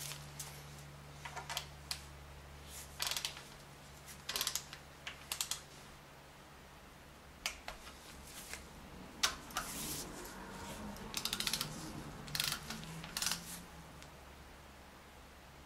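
Scattered metallic clicks and taps of hand tools on the engine's timing-chain hardware, then short runs of rapid ratchet clicking about eleven seconds in as the bolts of a new upper timing chain tensioner are tightened down.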